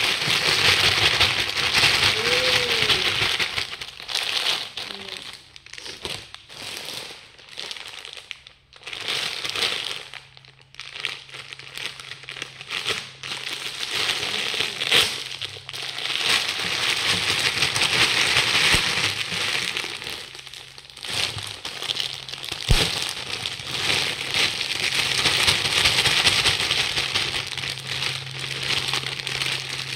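Clear plastic bags and cellophane-wrapped bundles crinkling and rustling as they are handled, in long stretches broken by short pauses. A faint steady low hum sits underneath at times.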